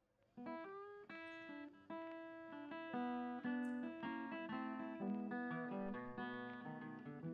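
Background music on acoustic guitar, coming in about half a second in after a moment of silence.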